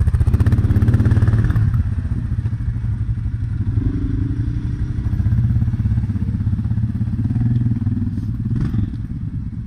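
ATV engine running close by at low, fairly steady revs, its firing pulses a fast even putter, loudest in the first second or so and briefly lifting in pitch midway.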